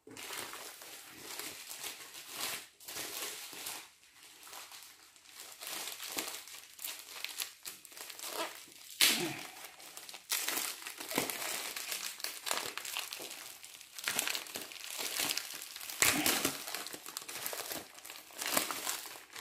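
Plastic packaging being crinkled and rustled by hand as a mailer is opened and its plastic bag pulled out, in uneven bursts with a few sharper, louder crackles partway through and again later.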